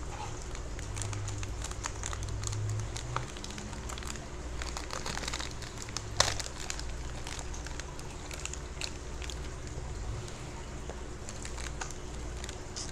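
Plastic fish bag crinkling and crackling as hands handle it and work at its knot to open it, with one sharper crackle about halfway through.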